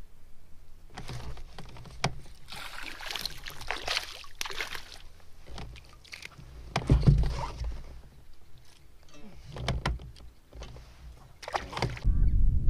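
Water sloshing and splashing against a plastic pedal kayak's hull, with scattered knocks and clicks as the angler moves, casts and reels. A loud low rumble sets in near the end.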